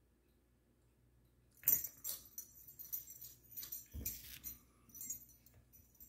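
Metal tags on a puppy's collar jingling and clinking as it moves about, starting about a second and a half in, with a couple of dull thumps from its movement on the carpet.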